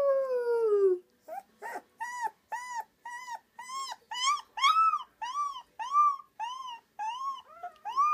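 A boy's long howl, falling in pitch, ends about a second in. A Rottweiler puppy then howls back in a rapid string of short, high yips, each rising and falling, about two to three a second.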